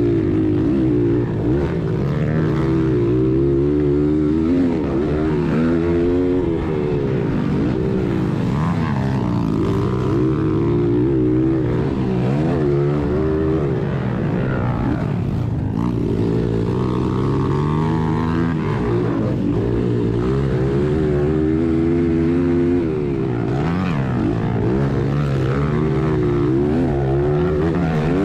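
1996 Honda XR100R's single-cylinder four-stroke engine ridden hard, heard from on the bike, its pitch rising and falling again and again as the throttle is worked.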